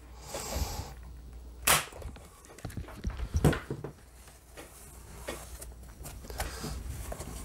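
Corded electric staple gun firing a staple through fabric into a pressing board: one sharp, loud snap about two seconds in. Then a second knock and a few lighter clicks and rustles as the fabric is handled.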